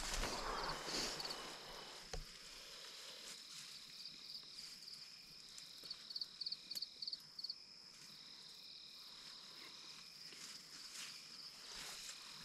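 Crickets and other night insects calling: a steady high trill, with a run of quick chirps from about four to seven and a half seconds in. There is a rustle in the first two seconds.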